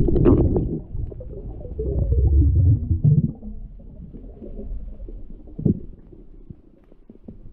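Muffled underwater rumble of water moving around a submerged action camera as a spearfishing diver swims down toward the seabed, louder in the first half and then dying away, with a few faint clicks.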